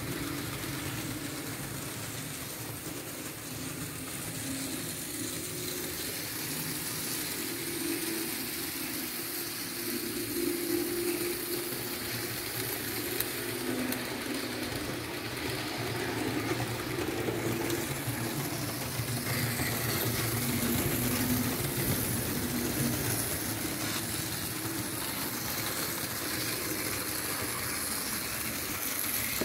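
Märklin H0 model train, a V 200 diesel locomotive pulling passenger coaches, running on the layout. Its electric motor whirs steadily under the rumble of wheels on the three-rail track, growing louder in the second half as the train comes closer.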